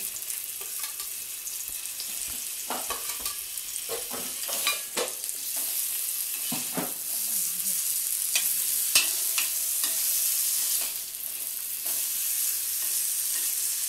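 Paneer slabs sizzling on a hot tawa over a gas flame, a steady high hiss that swells a little partway through. A spatula scrapes and taps against the pan as the pieces are laid in and turned.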